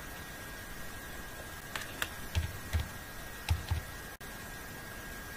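Computer keyboard keys being typed, a short run of about six separate key clicks in the middle, over a faint steady high hum and hiss.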